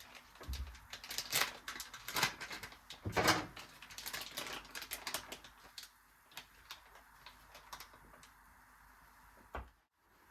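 Light knocks and clicks of household objects being handled and set down, thickest in the first half, then sparse.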